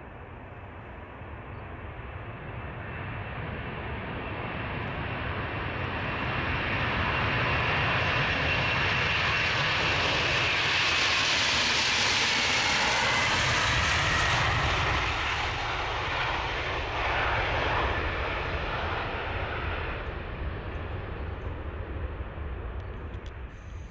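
Boeing 747-400's four turbofan engines at takeoff thrust as the jet rolls down the runway past and lifts off. The jet noise grows over several seconds, is loudest through the middle with a whine that drops in pitch as it goes by, then fades as the aircraft climbs away.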